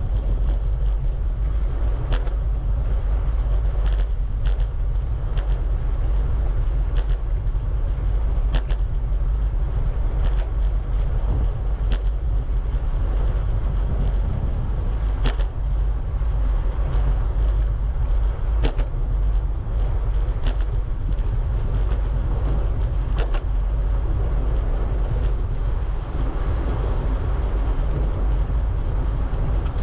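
Wind rushing over the microphone of a camera on a moving bicycle, with a short, sharp creak from the bike repeating about every one and a half to two seconds. The creak is a fault in the bike that needs sorting out.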